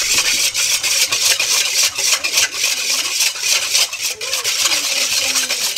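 Wire balloon whisk beating a thin milk marinade in a stainless steel bowl, its wires scraping and clicking against the metal in rapid, steady strokes.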